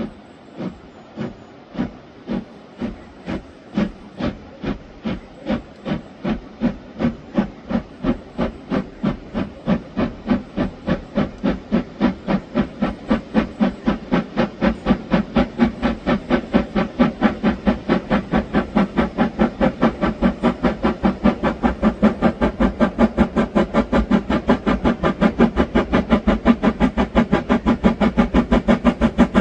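Steam locomotive pulling away, its exhaust chuffing in even beats that quicken from under two a second to about four a second and grow louder as it gathers speed.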